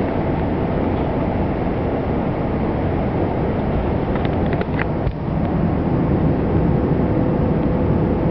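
Steady running noise inside a regional express passenger car at speed: the rumble and rush of wheels on rail and air around the car body. A few brief high squeaks or rattles about four to five seconds in.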